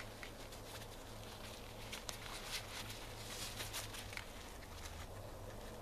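Irregular rustling and crinkling of a tarp being pulled and folded by hand, mixed with shuffling in dry leaf litter, with one sharp click about two seconds in.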